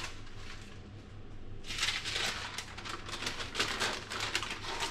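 Baking paper crinkling and rustling as a sheet of rolled-out pie dough on it is picked up and handled, starting about a second and a half in and going on in a dense run of small crackles.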